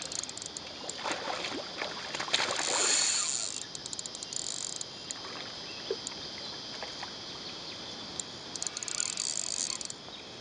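River water rippling over rocks and lapping at a stony bank, with a louder rush about two to three seconds in. Insects buzz in high bursts, and there are scattered light clicks.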